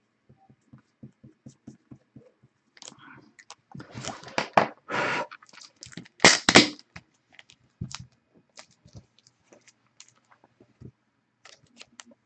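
Trading cards in plastic sleeves and hard plastic holders being handled: a string of small taps and clicks, then a few louder rustling scrapes about four to seven seconds in, and scattered clicks after.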